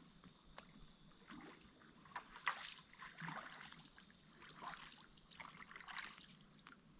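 Faint small splashes and trickles of water scattered through, as an inflatable air bed is moved and turned on the water, over a steady high hiss.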